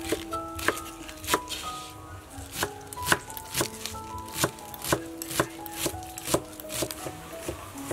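Chef's knife chopping green onion stalks on a wooden cutting board: sharp, even knife strikes about twice a second. Soft background music with held notes plays underneath.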